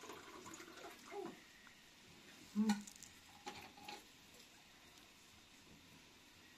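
Water poured from a thermos flask into a small container, with one sharp knock a little under three seconds in and a few faint clicks after it.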